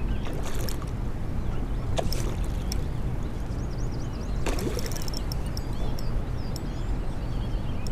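River water flowing steadily, with a few brief sharp sounds mixed in.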